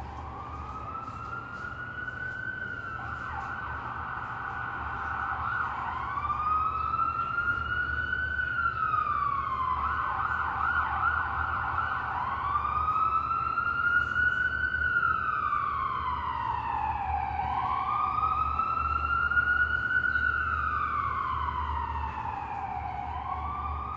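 Emergency vehicle siren in a slow wail, rising and falling in pitch about every six seconds and growing louder. A faster rising tone briefly overlaps twice. A steady low city hum runs underneath.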